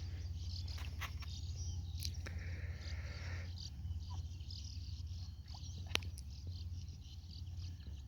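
Quiet open-air ambience on a river: a steady low rumble with a few sharp clicks and faint high chirps.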